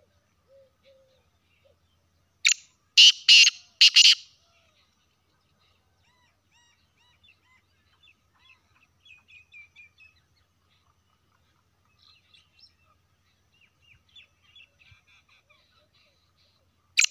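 Black francolin calling: a short sharp note followed by three loud notes over about a second and a half, about two and a half seconds in, with the next call starting near the end. Faint chirps of small birds fall in between.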